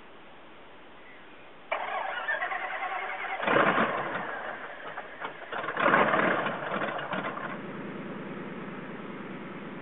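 Nemesis NXT's twin-turbo Lycoming 720 aircraft engine being started: a rhythmic cranking chatter begins suddenly, the engine catches with two loud surges about 3.5 and 6 seconds in, then settles into steady running.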